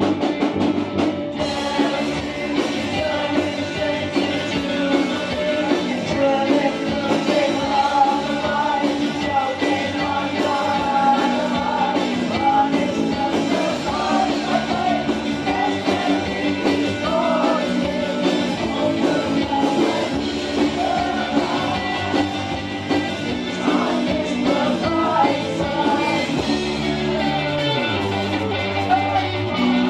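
Live rock band playing a song: a lead vocal over electric guitars, electric bass and a drum kit.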